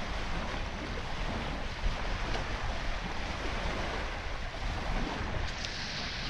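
Steady wind rushing over the microphone, with small lake waves lapping against the shore.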